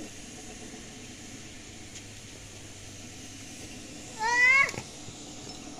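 A single short, high, quavering animal cry about four seconds in, lasting about half a second, over a low steady background.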